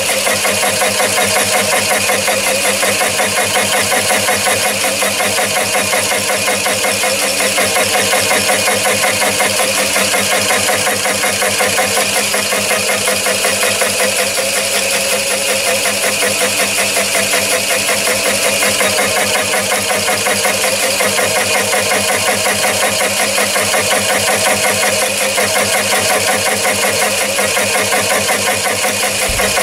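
A Chinese mini lathe turns a 3-inch HSS slitting saw at about 300 RPM, and the saw cuts steadily into a brass bar as the cross slide is slowly fed in. The teeth make a fast, even, unbroken cutting sound over the running lathe: the saw is cutting well, with no chatter from the tool holder.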